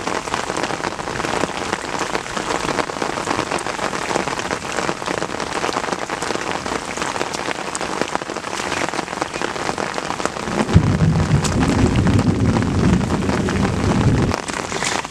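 Steady crackling hiss throughout. About eleven seconds in, a louder low rumble joins it for roughly three and a half seconds.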